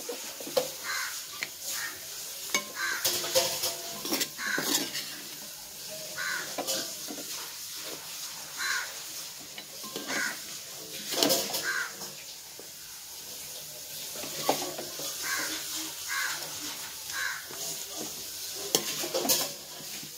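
A ladle stirring and scraping through cooked biryani rice in a large aluminium pot, in short irregular strokes about once a second with an occasional knock against the pot, over a faint sizzle from the pot on the heat.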